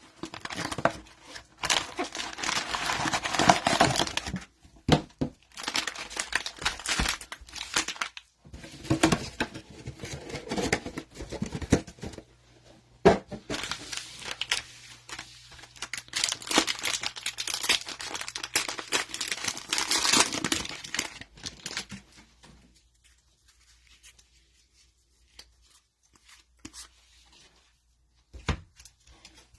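Plastic cello-pack wrappers of trading cards being torn open and crinkled, in several spells of tearing and rustling, falling nearly quiet for the last several seconds.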